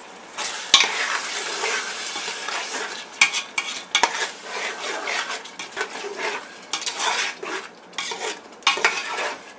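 A perforated metal ladle stirring and scraping through a thick frying masala in a metal pot, mixing in freshly added chilli powder, the oil sizzling underneath. Several sharp metallic clicks where the ladle knocks the pot.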